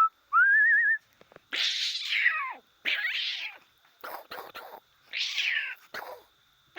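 Domestic cat meowing four times, each meow under a second and falling in pitch. The meows are separated by short pauses, with a brief wavering high tone just before the first.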